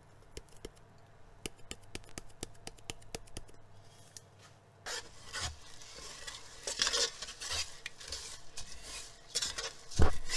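A series of short sharp clicks as white pepper is shaken from its shaker over the pot. About five seconds in, a plastic rice paddle stirs soaked rice and water in a rice cooker's non-stick inner pot, scraping and swishing, with a loud knock against the pot just after ten seconds.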